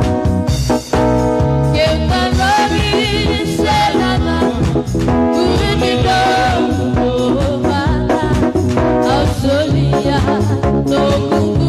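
Gospel song: a lead voice singing with vibrato over a band with a steady beat.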